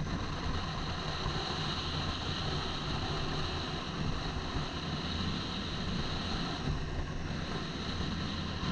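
Motorcycle engine running steadily on the move, with wind noise over a helmet-mounted microphone.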